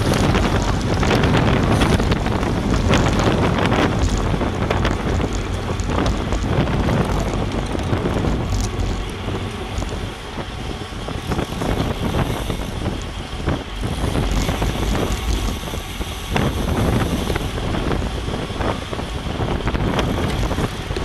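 Wind buffeting the microphone of a camera on a road bike riding at racing speed, a steady rushing noise with a few scattered clicks and knocks. The noise eases off slightly about halfway through.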